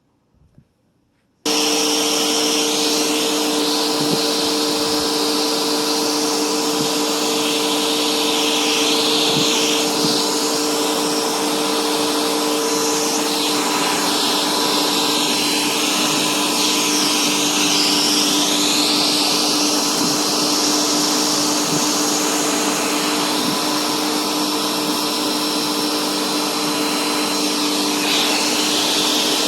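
Bissell bagless vacuum cleaner switched on about a second and a half in, then running steadily, with a constant motor hum under a rushing of air whose pitch shifts as the cleaner works.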